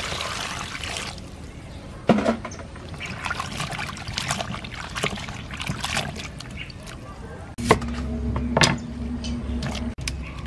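Water pouring over cut bell peppers, carrot and onion in a steel pot, then hands swishing and rubbing the vegetables in the water, with splashes and knocks against the pot. A steady low hum comes in for a couple of seconds after the middle.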